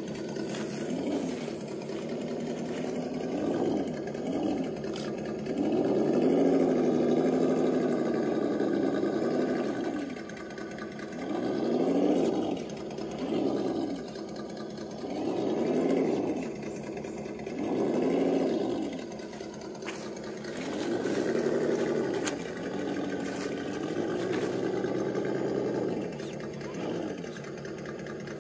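Electric motor and gearbox of a Traxxas TRX-4 Bronco RC crawler whining as it crawls over a rock. The whine rises and falls in pitch again and again with short bursts of throttle.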